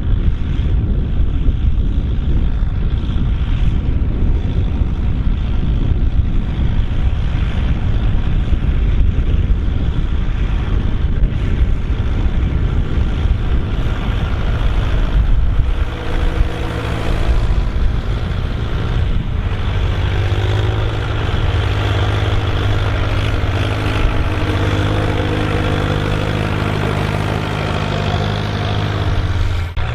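Volvo BM 650 tractor's diesel engine pulling a plough, a steady loud engine note; for the first half it is smothered in a heavy low rumble, and from about halfway the engine's steady tone comes through clearly.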